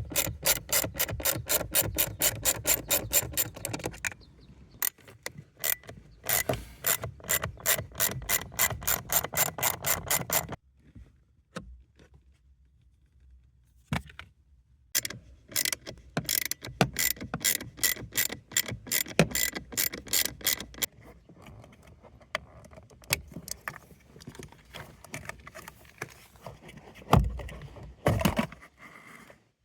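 Honda N-ONE blower fan motor making an abnormal rapid clicking, several even clicks a second like a ratchet. The clicking stops and starts again twice, then turns sparse and irregular, with one louder knock near the end.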